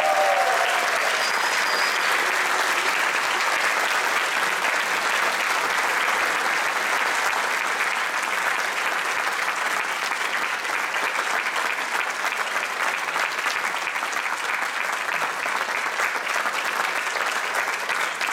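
Audience applauding, dense and steady, easing off a little in the second half.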